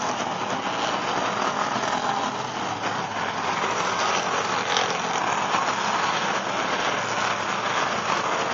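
Enduro race cars running together on an oval track, their engines blending into one steady, dense noise.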